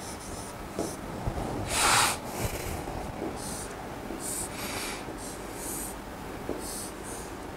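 Stylus strokes scratching across an interactive display's screen as a chemical structure is drawn, a series of short hissy strokes. About two seconds in there is one louder sniff.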